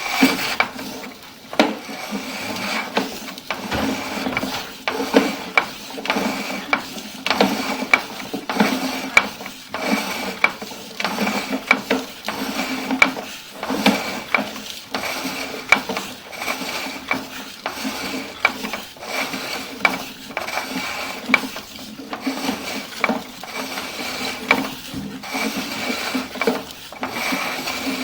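Sewer inspection camera and its push cable being fed through a drain pipe: continuous irregular scraping and rubbing with frequent small knocks and clicks, over a faint steady hum.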